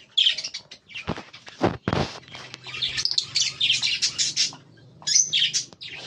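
Small caged aviary birds chirping rapidly in high, quick calls, with a few dull knocks, like a wooden nest box being handled, about one to two seconds in.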